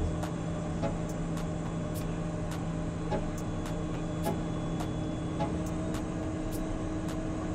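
Steady cabin noise in the cockpit of a Cessna Citation Mustang in flight: the even hum of its twin turbofan engines and the airflow, with a few constant tones and faint ticks about twice a second.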